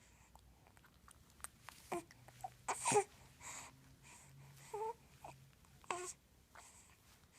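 A baby making a string of short squeaky coos and babbling noises, with breathy sounds in between.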